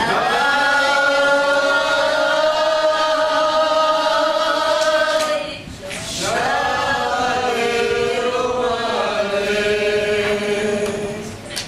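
A group of voices singing together unaccompanied in long, held notes: two sung phrases with a short break about six seconds in.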